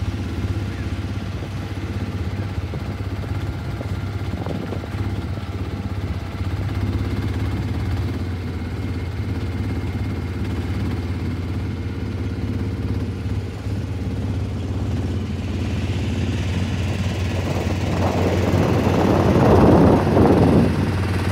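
Small boat engine running steadily with a low hum. Near the end a louder rushing noise swells up and dies away.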